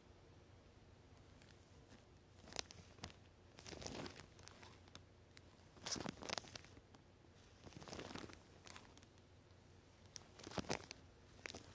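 A Somali cat's fur and whiskers rubbing close to the camera's microphone: faint, scratchy crackling rustles in about half a dozen short bursts, spread irregularly.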